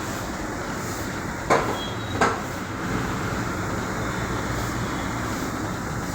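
Tyre-changing work on a pickup wheel: two sharp knocks, about a second and a half and two and a quarter seconds in, over steady background noise.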